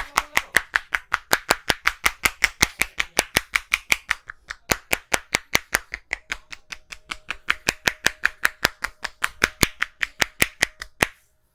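A masseur's hands striking in rapid percussive massage strokes: a fast, even run of sharp claps, about five a second, with a brief break about four seconds in, stopping near the end.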